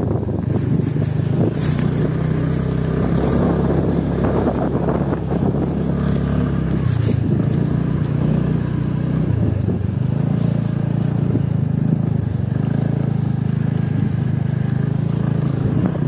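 Motorcycle engine running as the bike is ridden along a dirt road, a steady low note that drops and picks up again a few times.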